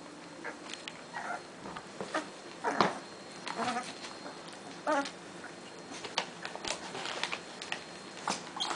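Pit bull puppies play-fighting, giving short yips and whimpers about once a second.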